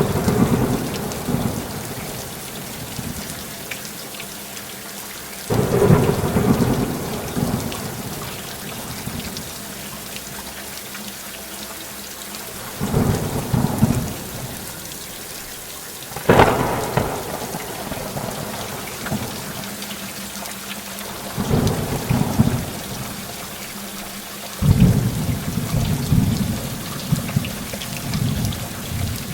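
Heavy rain falling steadily, with thunder rolling in about six times. The sharpest thunderclap comes a little past halfway.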